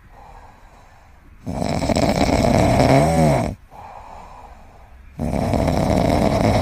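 A sleeping kitten snoring: two loud snores, one starting about one and a half seconds in and one near the end, with quieter breathing between them. The first snore carries a short whistle that rises and falls in pitch.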